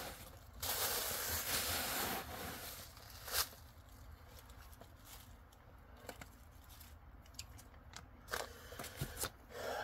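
Thin plastic bag rustling and crinkling as it is handled and crumpled, loudest for the first two seconds. After that come a few light ticks and taps of handling.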